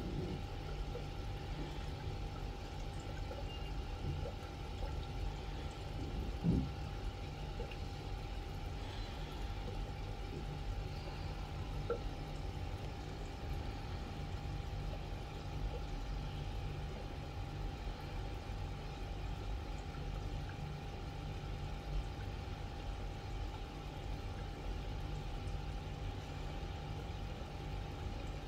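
Steady trickle of water circulating in an aquarium, with a constant hum and low rumble underneath; a single soft knock about six and a half seconds in.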